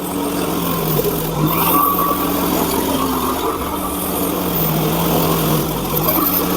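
Small gasoline engine of a Hudson portable band sawmill running steadily while the band blade saws through a cherry log; the engine note sags briefly twice under load.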